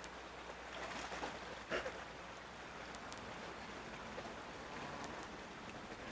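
Shallow creek water running steadily over rocks, with one brief splash a little under two seconds in as hands grab into the water.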